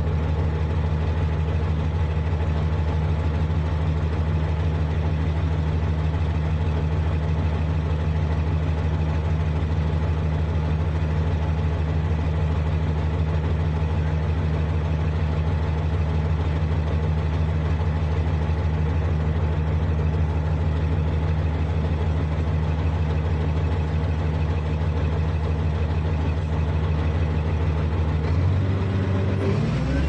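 Heavy diesel engine of a construction machine running steadily at a low, even speed, its note shifting about two seconds before the end.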